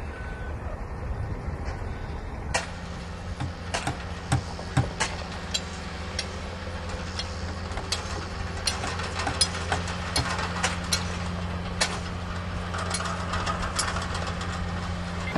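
Diesel engine of a padfoot soil compactor roller running steadily, coming in about two and a half seconds in, with sharp metallic clanks and knocks scattered throughout.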